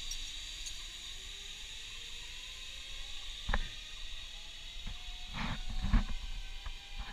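Zipline trolley running along a taut steel cable: a steady hiss with a faint whine that rises slowly in pitch. Sharp clunks of trolley and harness hardware on the cable come once about three and a half seconds in, then several louder ones between five and six seconds in.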